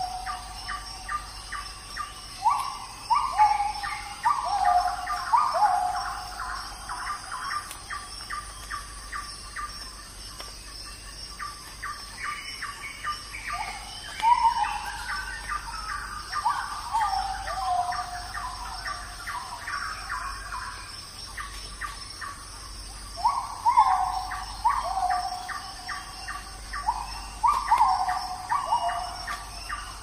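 Birds calling in bouts of short falling whistled notes, with a fast series of short chirps, over a steady high insect drone.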